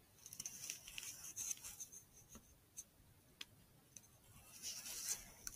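Faint scratching and rubbing with a few soft clicks: handling noise on a rifle with a thermal scope, including its controls being worked as the zoom goes to 8x.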